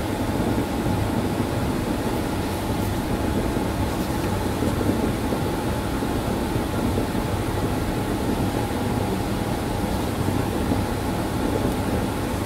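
Steady rushing background noise with a faint, even hum, like ventilation or equipment running, played back at four times speed.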